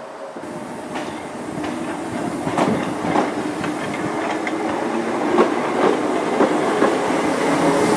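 Class 319 electric multiple unit departing and passing close by, growing louder as it goes. Its wheels click over rail joints, more often and more loudly toward the end, over a steady low hum and rumble.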